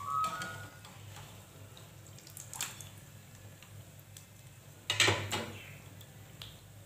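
Hot oil dripping and crackling off freshly fried samosas held in a wire skimmer over the frying pan, scattered small ticks with one louder burst about five seconds in.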